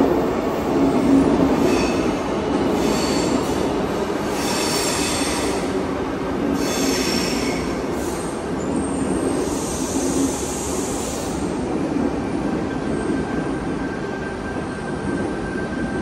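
Sydney Trains Tangara double-deck electric train moving along an underground platform: a steady rumble with repeated high-pitched wheel squeals through the first half or so. A thin steady whine comes in about three-quarters of the way through.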